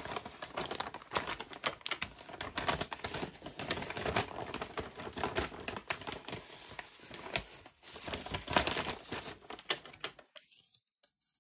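Plastic packaging crinkling and rustling as a poly mailer and clear plastic wrap are handled, a rapid, irregular patter of small crackles that stops about ten seconds in.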